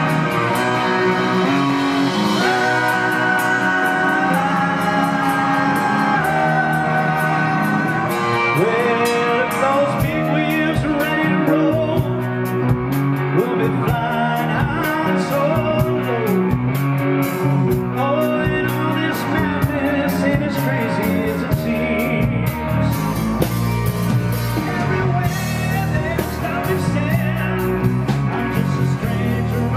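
Live rock band playing: electric guitar, bass guitar and drums, with a male lead singer.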